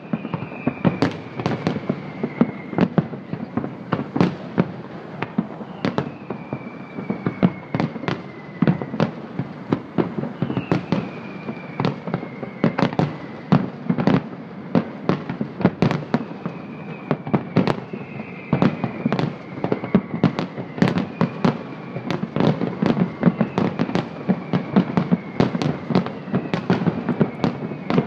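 Fireworks display: aerial shells bursting in a dense, irregular run of bangs, with a long whistle falling in pitch every few seconds.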